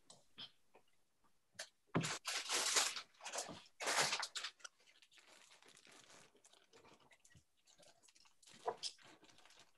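Faint rustling, scraping and knocking of paper and objects being handled away from the microphone, as a paper artist's book is fetched. It comes in short scattered bursts, mostly a couple of seconds in, with two small clicks near the end.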